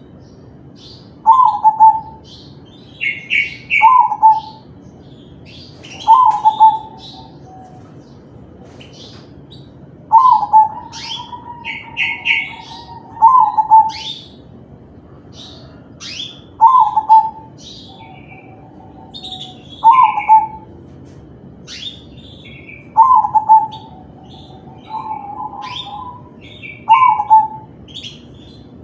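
Crossbred zebra dove (perkutut) singing its cooing song, with a short phrase repeated about every two to three seconds. Fainter, higher chirps from other small birds come in between the phrases.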